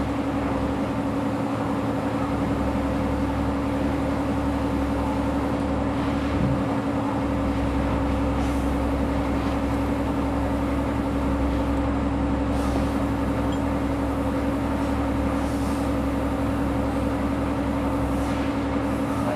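Steady mechanical hum: one constant droning tone over a low rumble, unchanging.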